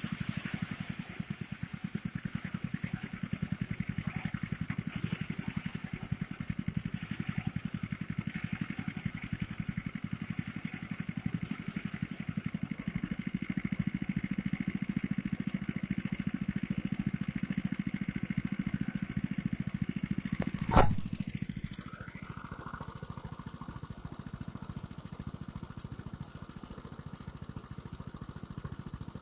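Small engine of a motorised rice thresher running steadily with a fast, even beat. About two-thirds of the way through there is one sharp knock, the loudest moment, after which the machine runs on more quietly.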